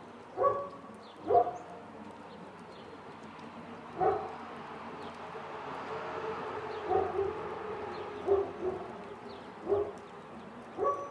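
A dog barking at irregular intervals, single barks about a second or several seconds apart, over a steady hiss of soft rain and city background that swells for a few seconds in the middle.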